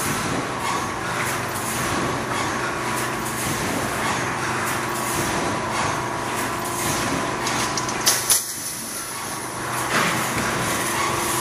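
Automatic fence mesh panel welding and bending machine running: a steady electrical hum under a continuous mechanical din with frequent clicks, and a loud sudden burst about eight seconds in.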